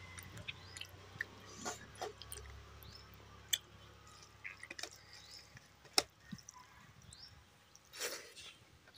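Eating rice, dal and saag by hand from a steel plate: quiet squelching as the fingers mix the food, a few sharp clicks, and a louder noisy mouthful about eight seconds in.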